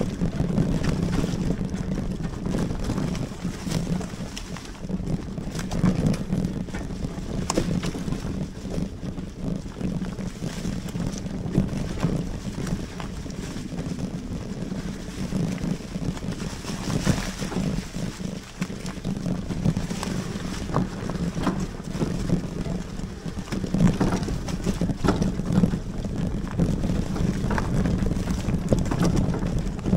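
Riding an electric fat-tyre mountain bike along a dirt trail: wind buffets the microphone over steady tyre and drivetrain noise, with scattered knocks and rattles from bumps.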